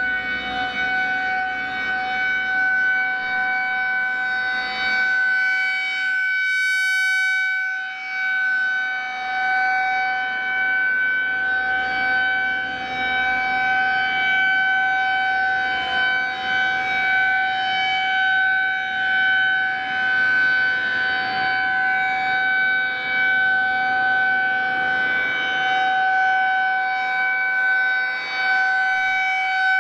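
Federal Signal 2001-SRNB rotating outdoor warning siren sounding a steady tone on its test, its loudness swelling and fading as the rotating head sweeps past.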